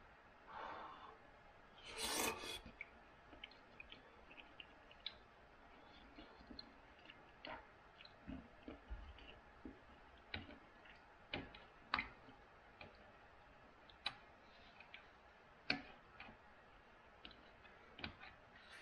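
A spoon scattered-clicking and scraping against a soup bowl during eating, with a brief louder noise about two seconds in.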